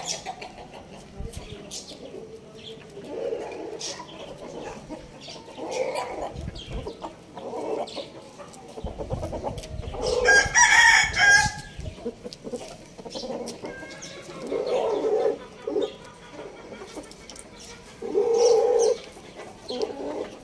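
Chickens clucking in short calls every few seconds, with a rooster crowing once about ten seconds in, the loudest sound.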